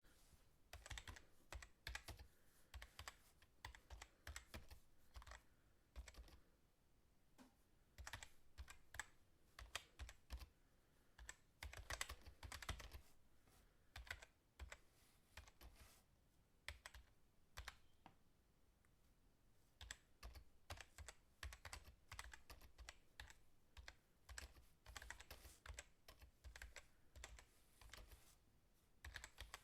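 Fast typing on a computer keyboard: rapid runs of key clicks with short pauses between bursts. The typing thins out for a few seconds about halfway through, then picks up again.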